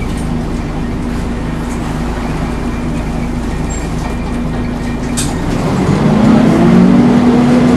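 Volvo Wright Renown single-deck bus running steadily with a low hum. About five and a half seconds in, its pitch rises and it gets louder, as when the bus revs up or pulls away.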